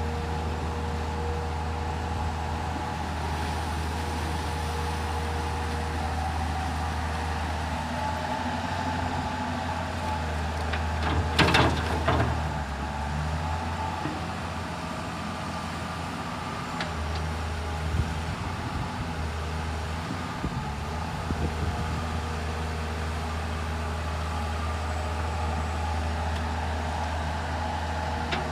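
Komatsu PC210 excavator's diesel engine running steadily under load, with a steady hydraulic whine over the low hum. About eleven seconds in comes a loud rattling clank lasting a second or so, with a few lighter knocks later.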